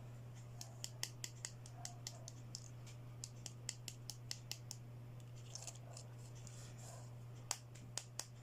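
Handling of a toy play set's packaging and small plastic pieces: a quick run of about twenty small sharp clicks and snips over the first five seconds, then a few louder clicks near the end, over a steady low hum.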